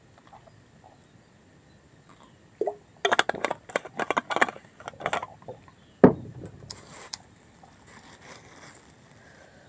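A clear plastic water bottle handled close by: crackling and crinkling for about two seconds, then one heavy thump on the wooden plank table about six seconds in, followed by faint rustling.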